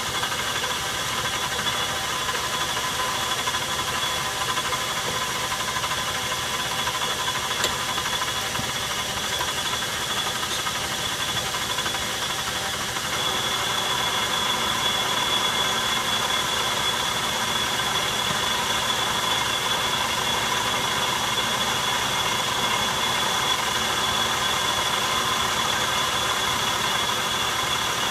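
Metal lathe running steadily while taking a light turning cut on a steel bar: a steady machine whine with a high tone over it. It gets a little louder about halfway through.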